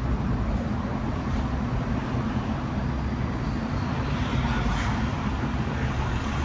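Street traffic noise: a steady rumble of passing vehicles.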